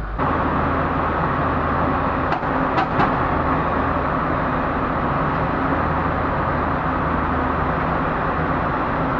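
Diesel engine of a Pindad tracked excavator idling steadily, with a few sharp clicks about two to three seconds in.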